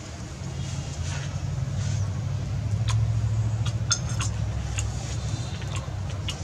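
A motor engine running nearby as a low steady rumble, growing louder about a second in and then holding. A few light clicks over it, as roasted snail shells are handled in a ceramic bowl.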